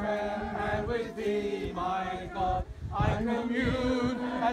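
A group of mourners singing a hymn together without accompaniment, holding long notes in phrases with short breaks between them.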